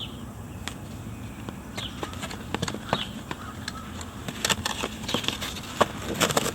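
Irregular clicks and taps, some sharper and louder, from hand work on the Honda CR-V's interior trim panels, with a few short high chirps.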